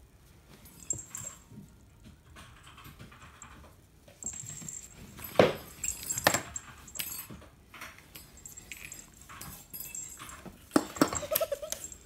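A plastic lattice cat-toy ball rattling and jingling as a cat bats it, with irregular sharp knocks of the ball and paws on the wooden floor, loudest about five and a half seconds in and again near the end.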